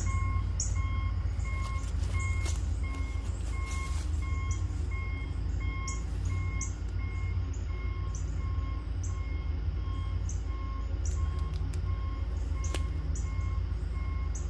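Reversing alarm of heavy equipment or a work truck beeping steadily, about two beeps a second, over a constant low engine rumble. Short clicks and rustles of camping gear being handled and packed come through close by.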